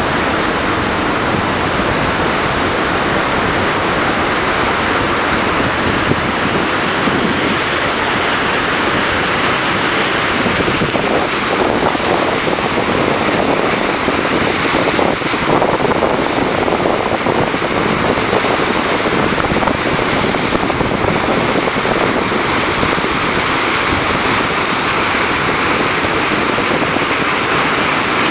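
Water rushing through an open dam spillway gate, carrying broken ice floes downstream as ice is passed through the dam: a loud, steady rush.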